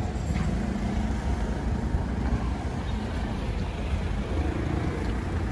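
Street traffic: cars creeping in a slow queue, a steady low rumble of engines and tyres.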